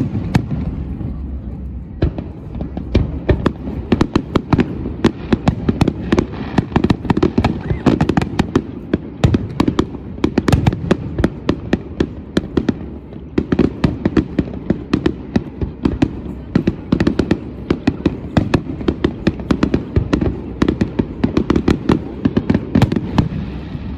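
Aerial fireworks display: a rapid, dense run of sharp bangs and crackling shell bursts over a low rumble. The bursts come thick and fast from about two seconds in, with a few brief lulls.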